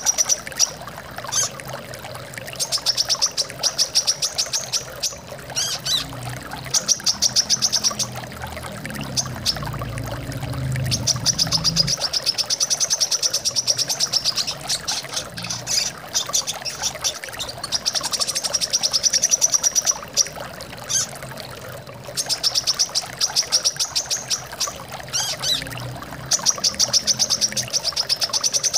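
Brown-throated sunbird (kolibri kelapa) singing: rapid high trills in bursts of one to two seconds, repeated every few seconds, over the steady sound of running water. A low rumble comes in briefly near the middle.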